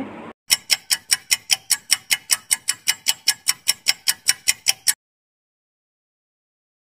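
Clock-ticking sound effect used as a quiz countdown timer: fast, even ticks, about five a second, which stop suddenly about five seconds in.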